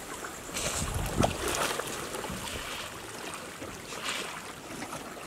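Water splashing and rushing against a small boat under way, rising in a few surges over a low rumble.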